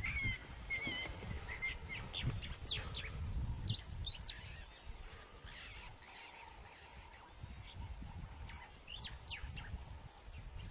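A pack of African wild dogs twittering in high-pitched, bird-like chirps as they greet one another, the calls coming in several flurries over a low rumble.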